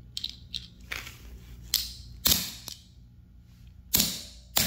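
A claw hammer striking the aluminum case of a Wyze smartwatch on a concrete floor: a few light taps, then heavier blows a little after two seconds in and near the end.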